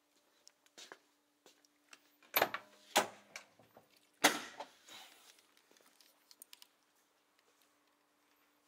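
Car door of a Mk1 Ford Fiesta being worked: three sharp clunks of the handle, latch and door about two and a half, three and four and a quarter seconds in, between a few faint clicks and rattles.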